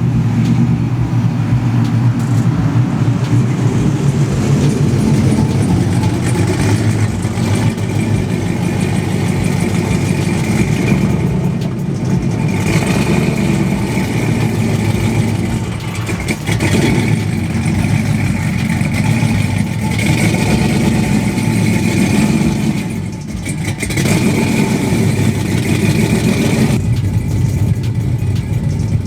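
Car engine running steadily, with brief dips in level about halfway through and again later.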